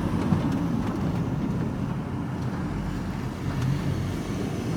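Van engine and tyre noise heard from inside the cab while driving along at a steady speed, a low even rumble.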